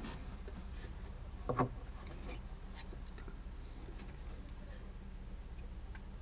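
Screwdriver and hands working at a marine generator's raw-water pump, prying out the rubber impeller: small scattered clicks and scrapes, with one louder knock about a second and a half in, over a steady low hum.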